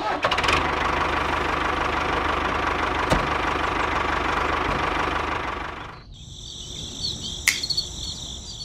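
Steady mechanical running sound of a miniature DIY model tractor driving along, which stops abruptly about six seconds in. Then crickets chirp in a high, pulsing trill.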